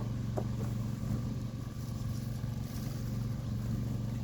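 A motorcycle engine idling with a steady low drone.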